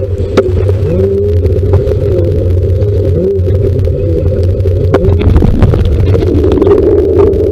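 Severe thunderstorm wind buffeting the microphone: a loud, steady low rumble with whistling glides and scattered sharp clicks.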